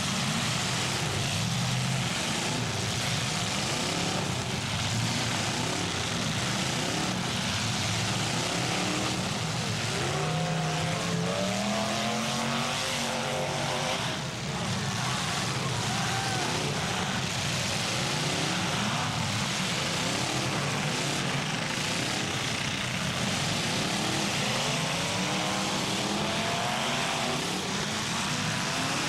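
Several demolition derby cars' engines revving at once, their pitches rising and falling and overlapping over a steady din of running engines.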